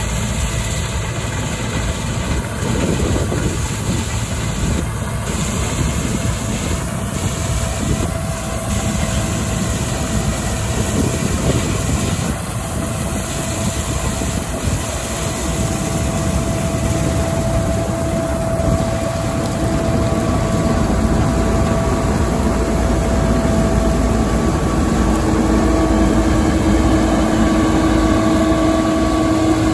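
Case IH 2388 Axial Flow combine harvester running under load, cutting and threshing oilseed rape, with a steady mechanical rumble. Steady whining tones grow stronger over the last ten seconds or so as the machine draws near.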